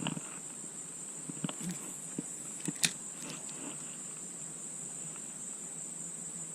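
Insects droning steadily in one continuous high-pitched tone, with a few light clicks or knocks in the first three seconds.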